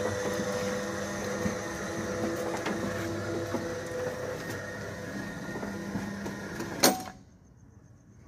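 Roller shutter motor running as it drives the shutter, a steady mechanical hum. It stops about seven seconds in with one sharp click.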